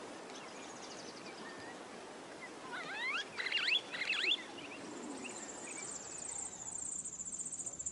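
Outdoor wildlife ambience: a soft steady hiss with a few quick chirping calls about three to four seconds in, then a high, steady insect trill setting in past the middle.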